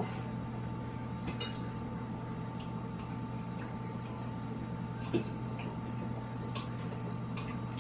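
Quiet eating sounds: a few faint, scattered clicks and taps over a steady low hum.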